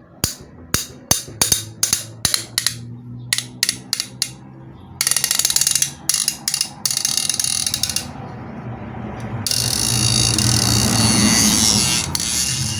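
Ratchet wrench clicking steadily, about two to three clicks a second, as it backs out a heat-loosened bolt on a water pump motor. It then turns into several seconds of faster, continuous ratcheting and rasping.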